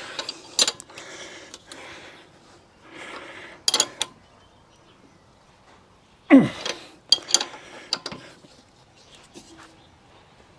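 Scattered metallic clinks and knocks of tools and parts being handled during work on a motorcycle's front wheel and axle. A cluster of sharp knocks comes about six seconds in, the first with a quick downward squeak.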